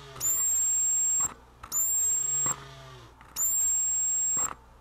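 High-pitched whine of the high-voltage oscillator in a vintage Snap-on MT241A timing light, switched on three times for about a second each. Each whine starts with a brief rise in pitch, then holds steady, with clicks of the switch in the gaps. The power switch comes on cleanly each time: the intermittent fault, a loose switched positive lead, has been repaired.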